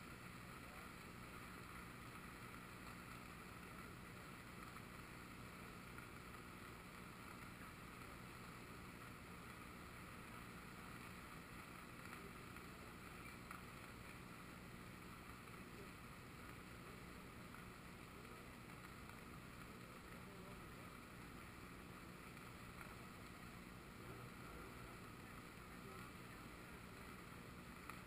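Faint, steady rushing of a river in flood, its fast current swirling past.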